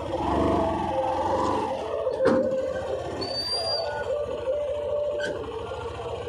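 Motor vehicle engine running at low speed, with a sharp knock a little over two seconds in.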